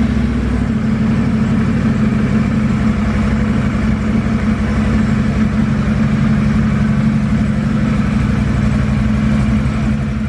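2015 Can-Am Outlander L 500's V-twin engine idling steadily on its first start after fresh spark plugs were fitted, running evenly.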